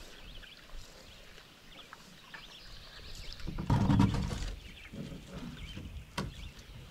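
Birds chirping faintly, with a louder stretch of rustling and scraping about three and a half seconds in as a wooden cedar-strip canoe and a backpack are handled on the shore, and a single sharp click just after six seconds.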